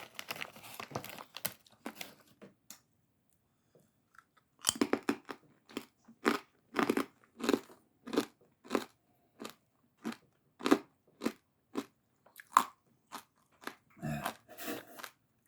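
Close-up chewing of a crunchy, spicy chicharrón: a few crunches, a pause of about two seconds, then sharp crunches at a steady pace of a bit under two a second.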